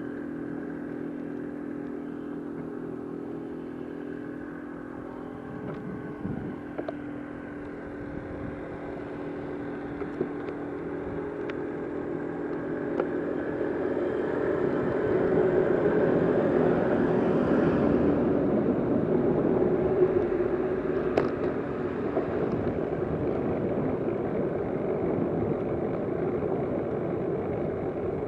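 Motor vehicle engine running with a steady hum. About halfway through it grows louder, with rushing road noise that peaks and then eases a little. A few light clicks come through it.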